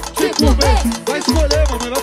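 Brazilian pagodão dance music in an instrumental stretch without vocals: a heavy bass drum about twice a second under quick percussion and a bouncing melody.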